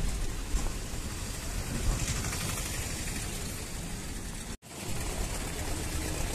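Bus engine and road noise heard from inside the cabin: a steady low rumble with a hiss of wind and tyres. It cuts out suddenly for an instant about four and a half seconds in.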